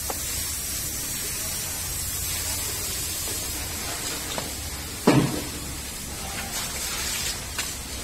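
Cow and calf eating dry feed from a plastic tub: a steady hissing rustle with faint clicks, and one sharp knock about five seconds in.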